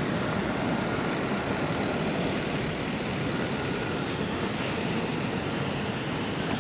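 Steady rushing wind buffeting the microphone while riding a bicycle, heaviest in the low end.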